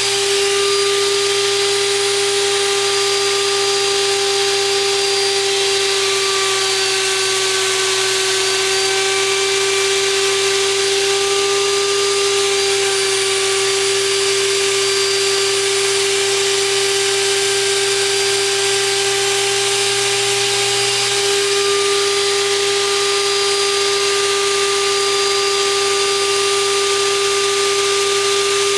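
Wood router on a homemade router lathe running with a steady whine, cutting a spinning stick of green wood down into a baseball bat.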